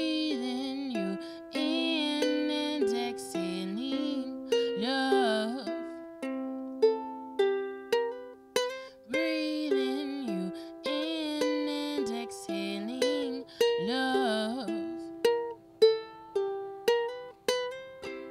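A ukulele strummed and plucked with a woman singing over it in wavering, drawn-out phrases. Twice the voice stops and the ukulele plays on alone with single plucked notes, each struck sharply and fading quickly.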